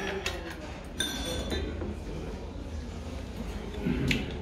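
Metal utensils clink against a stainless steel soup bowl: one clink with a short ringing about a second in, and a shorter click near the end.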